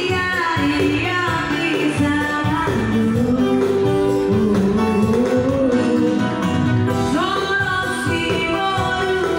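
A woman singing a slow song into a microphone over amplified backing music with guitar, played through a PA system; the voice holds and glides between long notes.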